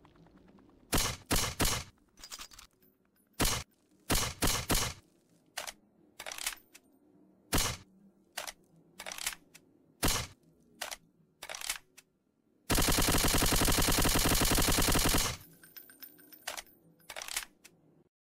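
Steyr TMP 9 mm machine pistol firing: single shots and short bursts of two or three, then one long fully automatic burst of about two and a half seconds, followed by a few more single shots.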